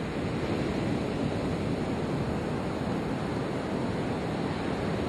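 Ocean surf breaking on a sandy beach, with wind on the microphone: a steady, even rush.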